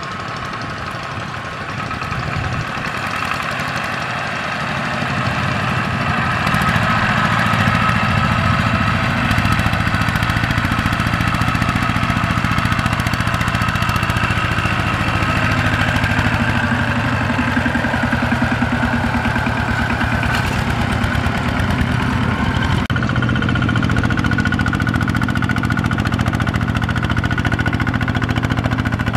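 Kubota ZT155 single-cylinder diesel engine of a two-wheel walking tractor chugging steadily while it pulls a trailer loaded with rice sacks. It grows louder over the first few seconds, then runs on evenly.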